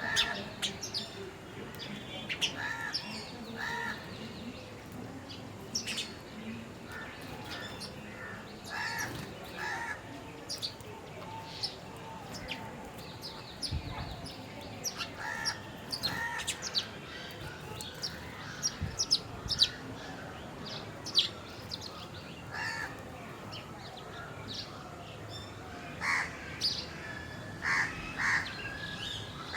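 Several birds calling and chirping, with many short repeated calls throughout.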